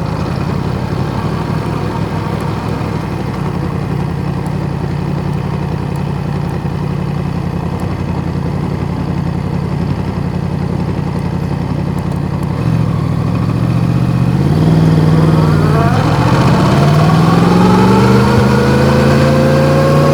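Yamaha MT-10's crossplane inline-four engine with an Akrapovic exhaust idling steadily, then pulling away about 13 s in: the engine note rises, dips briefly near 16 s, and climbs again.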